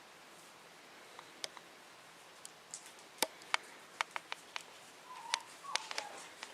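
Irregular sharp clicks and taps, about a dozen, scattered and growing more frequent after about three seconds, with two brief faint squeaks near the end.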